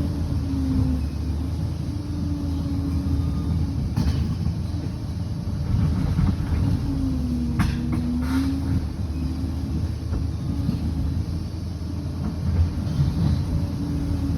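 Liebherr 746 crawler bulldozer working, its diesel engine running with a tone that dips and rises every second or two. A few sharp clanks come about four and eight seconds in.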